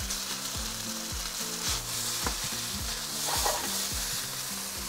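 Vermicelli rice noodles and chopped vegetables sizzling in hot oil in a wok as they are tossed with tongs, a steady high sizzle with a few light knocks.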